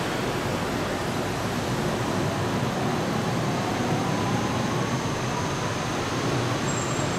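Yellow Line monorail train running with a steady rumble, and a faint whine rising slowly in pitch from about three seconds in.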